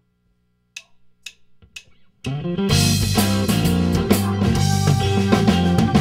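A few sharp clicks about half a second apart count off the song. About two seconds in, a blues-rock band comes in together, with electric guitar, bass guitar and drum kit playing.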